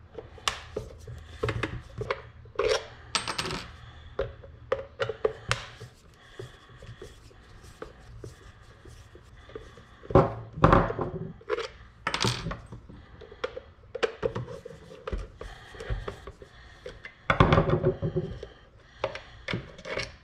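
Screwdriver backing long screws out of the plastic cyclone and filter housing of a Hoover Whole House Rewind Pet vacuum, making rapid small clicks and scrapes with metallic clinks. There are two louder knocks, about ten and about seventeen seconds in.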